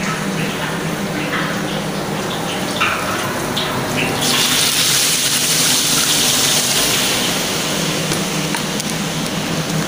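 Seasoned raw chicken pieces dropped into hot oil in a wok, starting to sizzle loudly and suddenly about four seconds in, the sizzle easing off gradually. Before that, a few light clinks of a metal spatula against the bowl as the chicken is scooped up.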